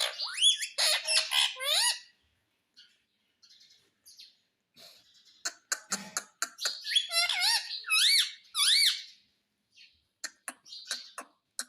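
Pet rose-ringed parakeet (Indian ringneck) calling in two bursts of rising-and-falling squawks, one at the start and one around the middle, with short clicking sounds in between and near the end.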